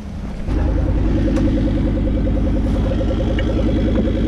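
Off-road 4x4's engine revving up about half a second in and holding at steady revs as the vehicle works its way down a steep bank.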